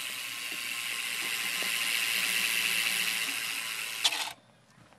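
BMX wheel's GT hub freewheeling: the pawls click so fast that they blur into a steady, high buzzing whir. There is a sharp click about four seconds in, and the whir cuts off suddenly just after it.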